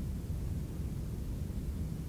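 Computer lab room tone: a steady low rumble with a faint hiss on top, even throughout, with no distinct clicks or events.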